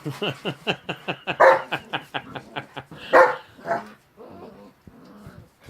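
Dogs barking and yipping in rough play: a fast run of short yaps, about six a second, with two louder barks about a second and a half and three seconds in, then quieter after about four seconds.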